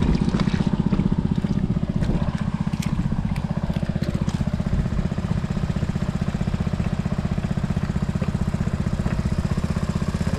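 A small engine running steadily at an even speed, with a few faint clicks in the first few seconds.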